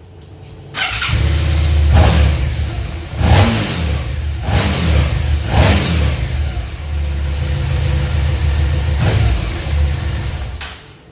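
Vehicle engine catching about a second in and then running with repeated blips of the throttle, revving up and back down several times through its freshly repaired exhaust pipe.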